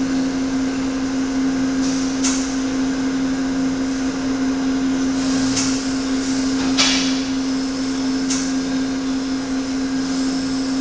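Steady low hum of a large hydraulic test press under load, with four sharp pops about a second or more apart, the third the loudest. Each pop goes with the anchor bolt yielding under the pull.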